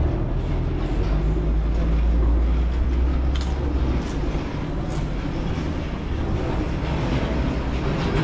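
Street traffic: a heavy vehicle's low rumble, strongest for the first four seconds and then easing, with three short high clicks around the middle.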